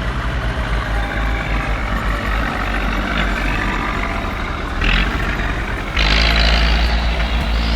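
A heavy machine's engine running steadily, with a short noisy burst near five seconds; about six seconds in, the sound jumps to a louder, steadier engine drone.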